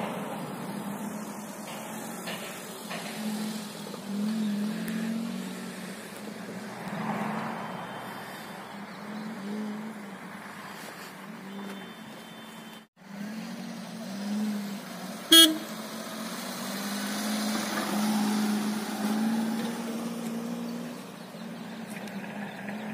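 Maruti Suzuki Alto's small three-cylinder petrol engine revving and easing off, heard from outside as the car is driven over loose sand and grass, its note rising and falling. The sound cuts out briefly about halfway, and a single sharp click comes soon after, the loudest moment.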